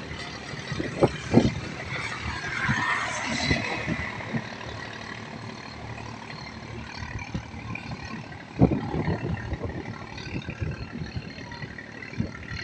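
Steady distant engine drone with outdoor background noise, broken by a few short low bumps about a second in and again after eight seconds.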